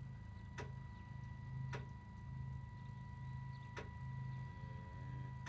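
Homemade RC bulldozer's electric drive motors and gearing running with a low hum that pulses about twice a second, under a thin steady whine. Three sharp clicks come through, about half a second, one and three-quarter seconds and nearly four seconds in.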